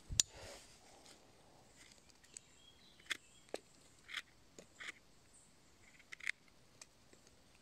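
Pocket knife cutting and scraping a bolete mushroom: a sharp click just after the start, then a scattered series of short, faint scrapes and clicks.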